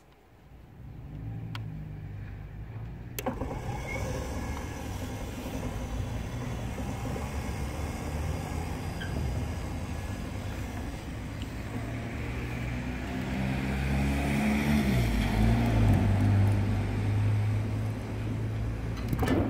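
Nice Robus sliding-gate operator's motor running, its pinion driving the gate along the toothed rack: a steady mechanical hum that starts softly, shifts in pitch about three quarters of the way through, grows louder, then stops abruptly near the end.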